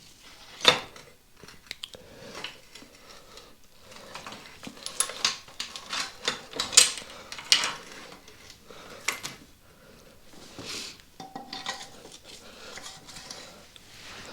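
Metal tools and motorcycle parts clinking and knocking as they are handled during a strip-down: scattered sharp clanks, one loud knock about a second in and a quick run of them in the middle.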